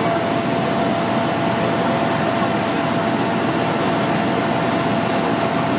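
Pierce fire engine's engine running steadily close by: a loud, even, unbroken noise with a thin steady whine in it.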